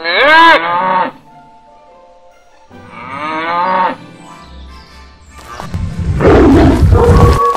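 A cow moos twice, each moo about a second long and rising then falling in pitch. Then, from about five and a half seconds in, a loud big-cat roar and growl takes over.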